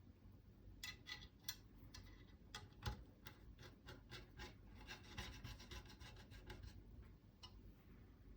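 Faint clicking and scraping of a T25 Torx driver turning the screws that hold a rifle forend rail in place, with a quicker run of small clicks from about five to six and a half seconds in.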